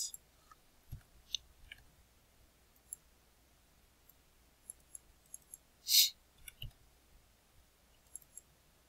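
Computer keyboard keystrokes and mouse clicks as numbers are typed into spreadsheet cells: faint and sparse, with one louder click about six seconds in.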